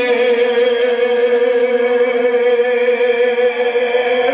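A man's voice holding one long, steady note in a noha recitation, the drawn-out last syllable of a sung line of Urdu lament.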